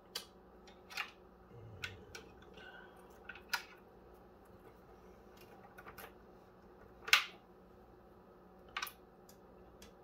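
A handful of short, sharp plastic clicks and knocks, the loudest about seven seconds in: the SATA connectors of a mini-SAS SFF-8643 to 4x SATA breakout cable being handled and pushed into hard drives in a server drive cage.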